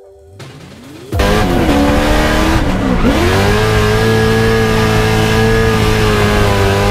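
BMW 3-series drift car's engine at high revs under full throttle, with tyre noise, starting suddenly about a second in. The revs dip sharply about two seconds in, then climb back and hold steady through the drift.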